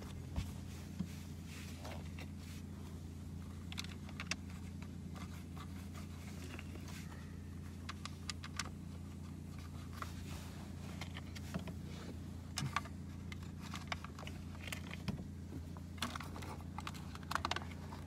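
Scattered light clicks and scrapes of small screws and plastic parts being handled and fitted into a switch-panel box, over a steady low hum.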